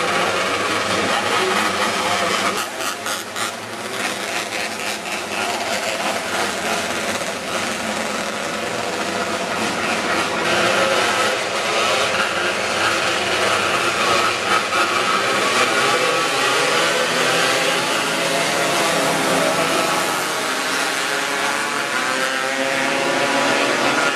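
A pack of winged sprint cars racing on a dirt oval, their V8 engines running hard together. The pitch rises and falls as cars pass and change speed.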